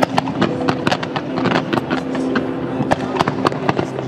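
Fireworks going off in quick succession: a rapid string of sharp bangs and crackles from aerial shells and fountains, over a steady droning tone.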